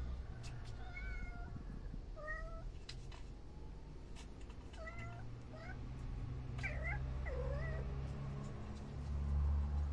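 Kittens mewing: a run of about six short, high-pitched mews, some with a falling pitch, over a low steady rumble.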